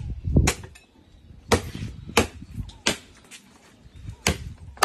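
A knife chopping through roast pork on a table: about six sharp, separate chops, irregularly spaced.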